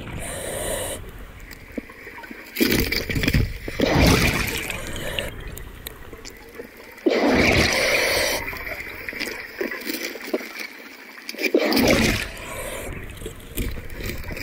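Underwater bubbling and gurgling heard through the camera housing, coming in loud bursts every three to four seconds over a steady water hiss, like a diver's exhaled bubbles.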